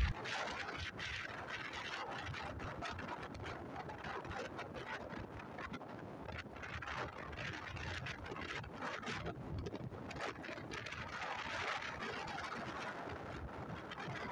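Wind noise on the microphone of a moving motorcycle, a steady rushing haze with frequent small crackles and no clear engine note.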